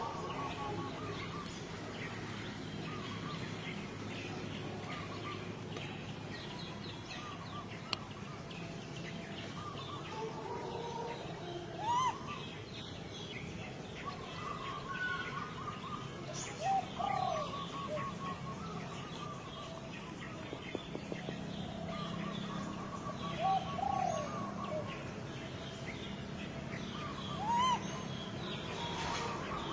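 Animal calls: repeated short chirping trills, with four louder, short, rising calls a few seconds apart.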